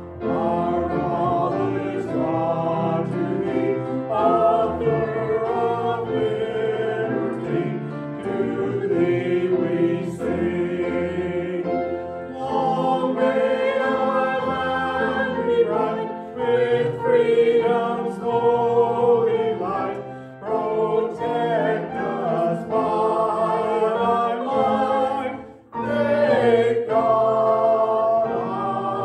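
Small mixed choir of men and women singing a sacred song together, accompanied by a grand piano, with a short break between phrases near the end.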